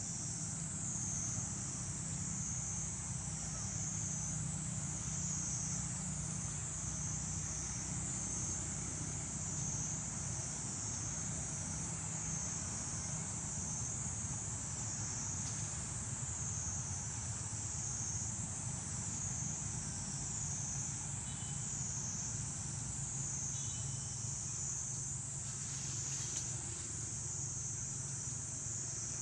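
A high-pitched insect chorus, swelling and fading in even waves a little more than once a second, over a steady low rumble.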